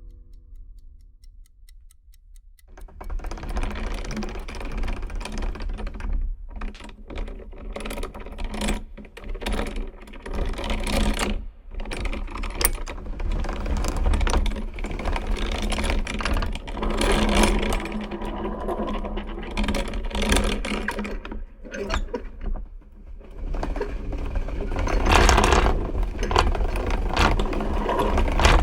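Old mechanical gear mechanism turning, a dense run of whirring and rapid clicking that starts about two and a half seconds in.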